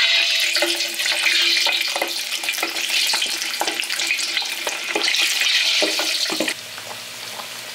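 Skin-on pork sizzling and crackling loudly with many sharp pops as it goes into hot cooking oil for the first fry of lechon kawali, on medium heat. About six and a half seconds in the sizzle drops to a quieter, steady hiss.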